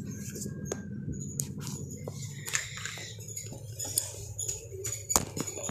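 Faint room noise with a low hum and scattered light clicks.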